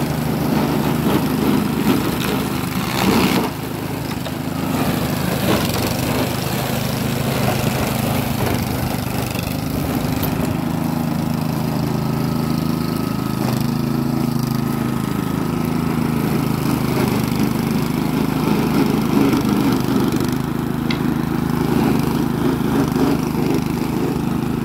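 Eurosystem walk-behind flail mower running steadily while cutting grass: the engine's steady drone together with the noise of the flail rotor chopping vegetation. There is a brief louder surge about three seconds in.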